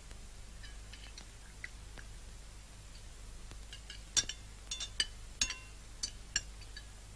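Knives and forks clinking and scraping on china plates as several people eat, faint at first, then a run of sharper, ringing clinks in the second half.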